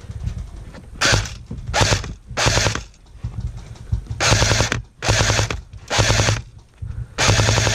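Airsoft electric rifle (AEG) firing on full auto in seven short bursts of rapid shots: three quick ones about a second in, then four longer ones from about four seconds in.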